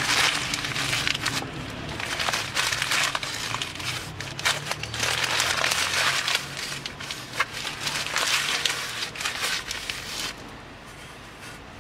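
Rag rubbing and scrubbing old grease off a car's wheel hub and bearing parts, in irregular wiping strokes that stop about ten seconds in.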